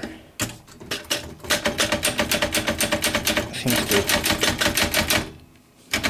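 L C Smith Super-Speed typewriter's carriage ratcheting through its escapement: a few separate clicks, then a fast, even run of sharp metallic clicks, about nine a second, that stops about five seconds in. The owner says this ratcheting mechanism and its spring preload have started to malfunction and hang up.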